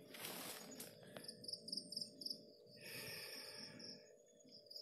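Faint crickets chirping in a rapid, even pulse, about five chirps a second. Around three seconds in there is a brief noisy swish.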